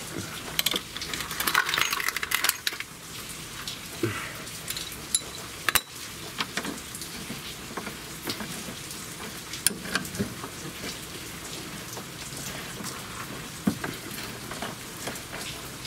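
Scattered metallic clicks and clinks of hand tools on steel as a screwdriver levers the rear suspension arm and a bolt is worked into its hole under the car, with a brief scraping about a second in.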